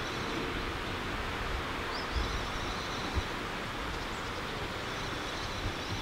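Outdoor ambience: a steady rustle of wind in leafy trees, with faint high bird chirps, a short rising one about two seconds in.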